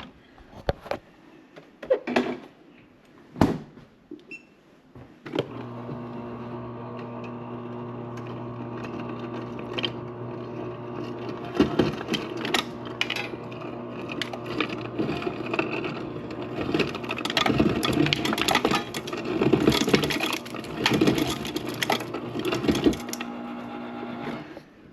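Bosch refrigerator's door ice dispenser on the crushed-ice setting. A few clicks and knocks come first; about five seconds in, the dispenser motor starts a steady hum, and ice crackles and clatters over it as it is crushed and comes down the chute. The motor stops just before the end.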